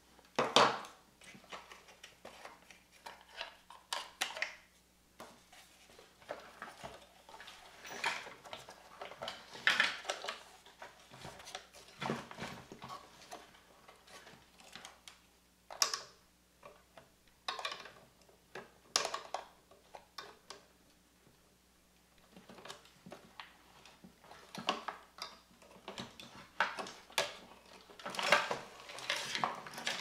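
Irregular clicks, knocks and rattles of the hard plastic chassis and parts of a Saeco espresso machine being handled and pried with a screwdriver during disassembly, with a brief quiet stretch about two-thirds of the way through.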